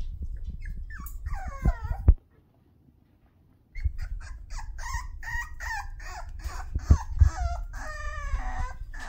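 Six-week-old toy poodle puppy yapping and whining in short high-pitched cries: a brief run about a second in, then a steady string of them from about four seconds in, with a few dull thumps. The puppy is taken to be angry ("you're so mad").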